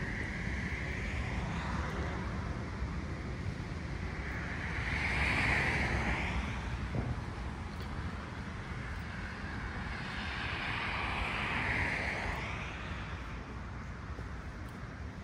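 Two cars passing on a road, each a rush of tyre noise that swells and fades over a few seconds, the first about five seconds in and the second about eleven seconds in, over a steady low rumble of wind on the microphone.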